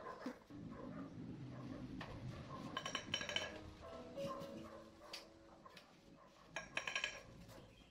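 Mortar scraped with a steel trowel, then fired clay bricks clinking as they are handled and set onto a mortar bed, in two bursts of ringing clinks about four seconds apart. Soft music plays underneath.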